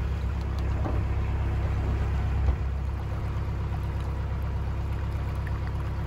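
Narrowboat engine running steadily while cruising, a low even rumble with some water and wind noise over it, and a brief thump a little before halfway.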